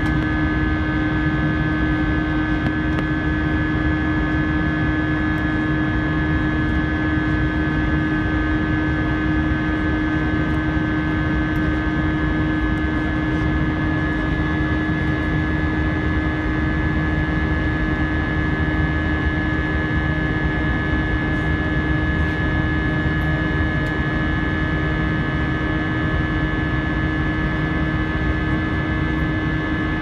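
Airbus A320's IAE V2500 turbofan engines at climb power after takeoff, heard inside the cabin beside the wing: a steady rush of engine and air noise with a constant low hum and a higher whine, unchanging.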